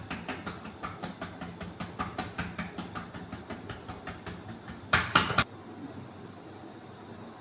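Massage strokes: hands tapping rhythmically on the body, about five light strikes a second. About five seconds in comes a brief, much louder flurry of strikes, then only a faint steady hiss.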